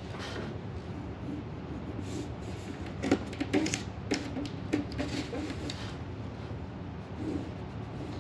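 Drawing strokes on paper: a run of short scratches and taps for a couple of seconds in the middle, over a steady low hum.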